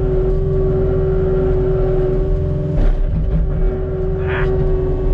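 Cat 289D3 compact track loader's diesel engine running steadily under load, heard from inside the cab, with a steady whine over the low engine rumble. A single clunk about three seconds in, and a short higher-pitched sound about a second later.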